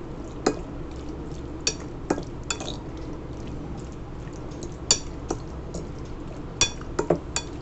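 Metal fork stirring raw chicken cubes through a thick yogurt-and-spice marinade in a glass bowl, clinking sharply against the glass at irregular moments, about nine times.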